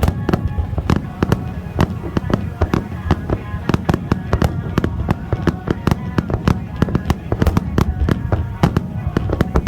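Fireworks going off in quick, irregular succession: many sharp bangs and crackles, several a second.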